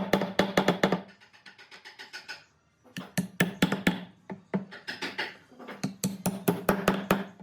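Rapid runs of sharp knocks, several a second, each run lasting about a second with short pauses between.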